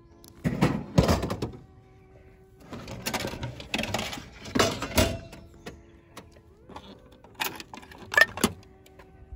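Vending machine dispensing a can of Boss Café au Lait: the can drops down the chute into the tray with heavy knocks about half a second in. Then come rattling and clatter as the plastic dispenser flap is pushed open and the can is pulled out, and near the end coins clink sharply as change is taken from the coin return. Soft background music runs underneath.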